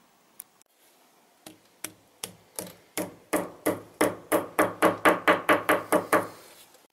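Hammer tapping a plastic wall anchor into a drilled hole in a breeze-block wall: about sixteen blows, light and spaced at first, then louder and quicker, up to about four a second, before stopping.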